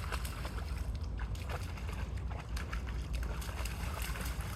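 Steady low rumble of wind on the microphone, with water sloshing and scattered small clicks and splashes.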